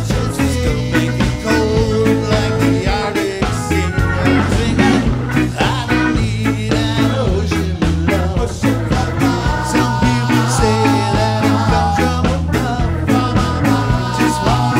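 Live band playing an upbeat ska-style groove, with drum kit, electric bass, electric guitar, keyboards and saxophone over a steady beat.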